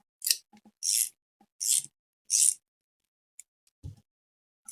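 Four short raspy strokes about two-thirds of a second apart, then a dull knock near the end, from hand tools working the crankcase bolts and nuts of an engine case.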